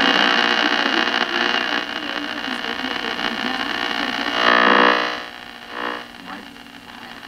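Shortwave static and interference from a Zenith 4-T-26 tube radio's speaker as the tuning knob is turned: a hiss laced with steady whistling tones. About four and a half seconds in, a brief louder squeal of shifting tones passes, then the hiss drops quieter.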